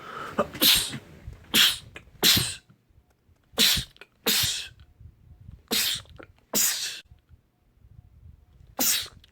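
A man sneezing about eight times in quick succession, each a short, sharp, loud burst, several of them coming in pairs.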